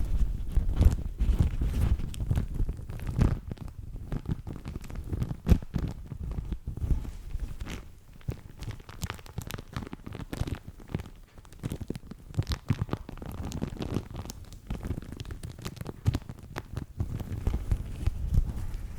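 Crinkly paper napkin crumpled and rustled by hand close to the microphone: dense, irregular crackles and rustles with low handling thumps.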